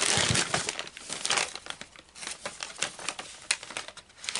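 Plastic mailer bag crinkling and rustling as it is handled, in irregular bursts, loudest in the first second.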